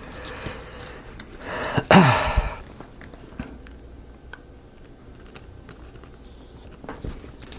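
Small wooden marble-run parts being handled and fitted, giving scattered light clicks and taps, with a louder rustling burst about two seconds in.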